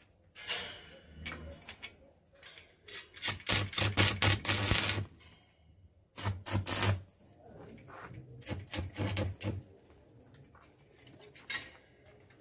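Electric arc welding on a wrought-iron gate: four short bursts of sputtering crackle, each with a low electrical hum under it, the longest and loudest in the middle. A single click follows near the end.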